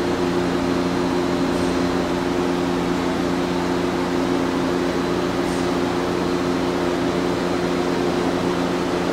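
Steady machinery hum in a distillery's yeast-tub room: a constant drone of a few low tones over an even rushing noise, unchanging throughout.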